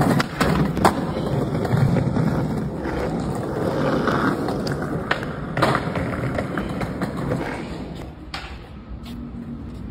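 Skateboard wheels rolling over concrete paving slabs, a continuous rumble broken by a few sharp knocks of the board.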